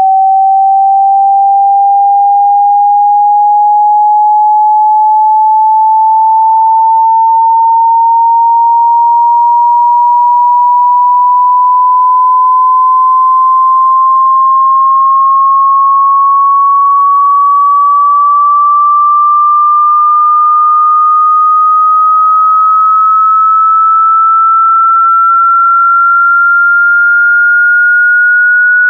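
Pure sine test tone of a hearing-test frequency sweep, one steady whistle-like tone gliding slowly and evenly upward in pitch at constant strength.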